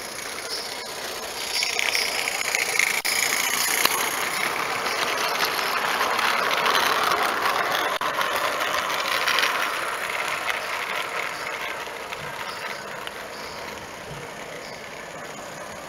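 16 mm scale garden-railway model steam tram running on the track with its train of wagons, a steady running noise full of small clicks. It grows louder as the train comes close, is loudest around the middle, then fades as it moves away.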